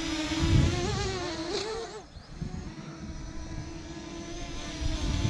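Parrot Anafi quadcopter's propellers whining, the pitch wavering up and down as the motors change speed to keep the drone level. The whine sags and quiets about two seconds in, then steadies and grows louder near the end.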